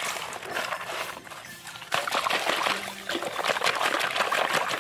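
Hand scraping through wet sand in a plastic toy dump truck's bed, then water splashing and trickling, louder from about two seconds in, as a small toy car is lifted out of shallow muddy water and water pours off the truck.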